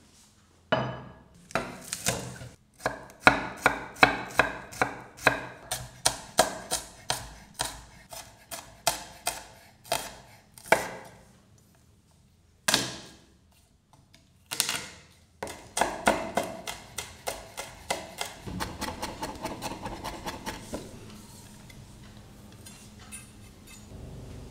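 Chef's knife chopping on a wooden cutting board: a knock as the board is set down, then a long run of sharp, even chops about two to three a second. After a pause come a couple of single strikes and a quicker run of lighter chops as garlic is minced.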